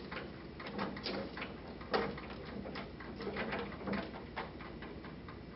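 Cold shrink EPDM rubber splice housing slid by hand along a silicone-greased medium-voltage cable: faint, irregular rubbing with small clicks, and one sharper click about two seconds in.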